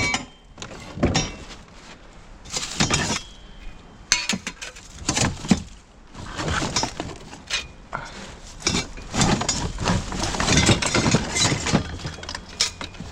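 Rummaging through a pile of discarded junk: hard objects knocking, clinking and clattering against each other in irregular bursts.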